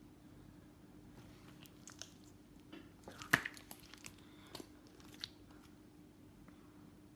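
Sticky butter slime being squished and pulled by hand, giving scattered faint sticky clicks and pops, the loudest a little over three seconds in, over a faint steady hum.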